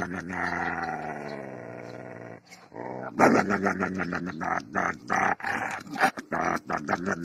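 Siberian husky growling and grumbling as it mouths a hand held against its muzzle: one long drawn-out growl sliding slowly down in pitch, then, after a short pause, a run of choppy grumbles.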